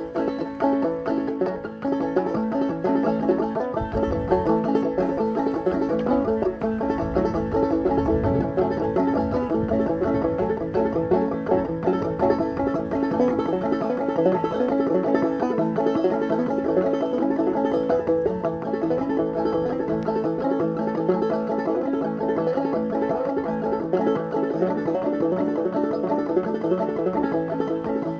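Banjo played solo, a steady, continuous run of picked notes.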